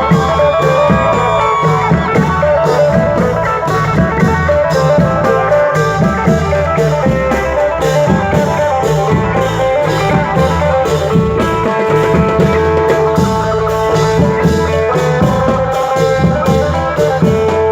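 Thai Isan band music in a lively fon dance rhythm: a steady drum beat under a plucked-string melody.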